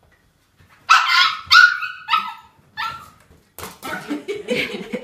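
A dog barking: four sharp, high-pitched barks, the first two the loudest. Near the end a busier mix of other sounds follows.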